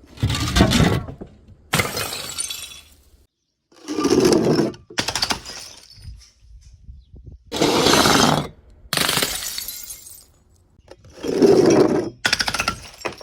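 Glass bottles shattering one after another, about seven separate breaks, each a sudden crash followed by about a second of tinkling shards.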